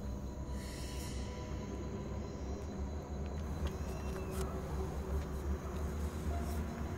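Low, steady droning underscore music, with a brief soft hiss about half a second in.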